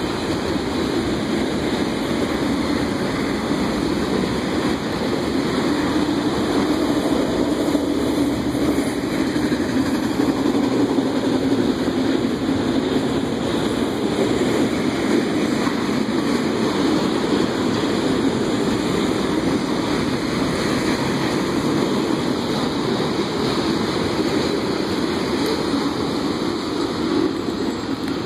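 Freight train of autorack cars rolling past on the track: a steady rumble of wheels on the rails.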